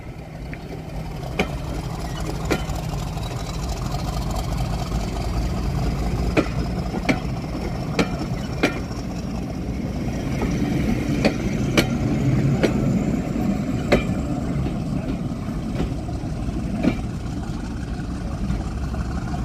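Railway passenger coaches rolling slowly past with a steady low rumble, their wheels clicking sharply over the rail joints every second or so. A faint high whine rises slowly in pitch.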